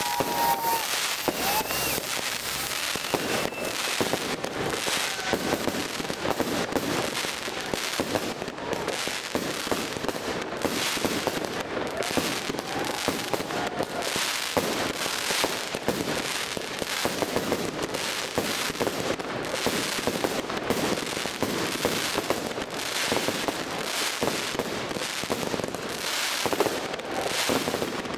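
Aerial fireworks going off in a continuous volley: a dense stream of bangs and crackling bursts, one after another without a break.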